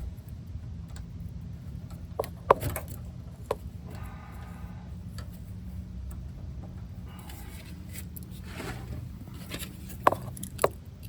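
Wrenches clinking and scraping against metal on a brake-line fitting: a few sharp metallic taps, a couple of short scraping stretches, and a steady low hum underneath.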